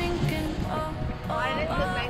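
Background pop song with a singing voice.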